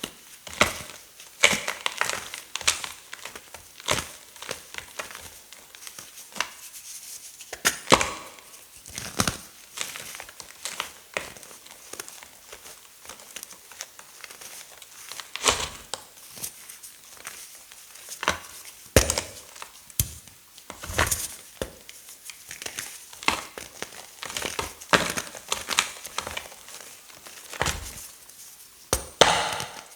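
Blocks of glittered gym chalk being crushed, a stream of irregular sharp crunches and crumbling crackles, a few much louder cracks among them.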